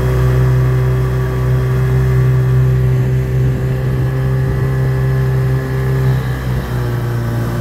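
Mercury 110 outboard motor running steadily at cruising speed, heard from aboard the small boat it pushes, with its pitch dipping slightly near the end.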